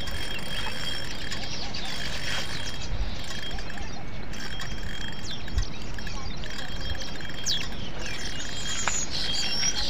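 Steady outdoor background noise with faint bird chirps scattered through it.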